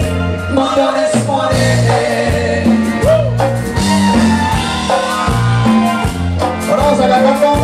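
A live Mexican band playing amplified through PA speakers: a man sings into a microphone over a drum kit, electric guitar and bass guitar, with a steady pulsing bass line.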